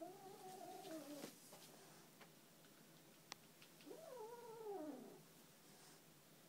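A domestic cat giving low, drawn-out yowls, a defensive caterwaul at a feather duster held near it. One long wavering call ends about a second in, and a second one starts about four seconds in and falls in pitch at its end.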